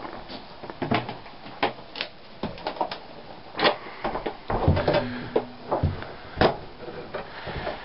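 A run of irregular knocks and clatters, loudest about three and a half and six and a half seconds in, with a brief low hum near five seconds.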